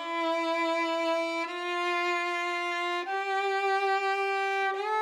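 Background music: a violin playing long held notes, each a step higher than the one before, changing about every second and a half.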